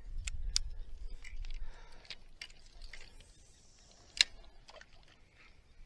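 Small clicks and rattles of fishing tackle being handled, with one sharp click about four seconds in. A low rumble of handling on the microphone fills the first couple of seconds.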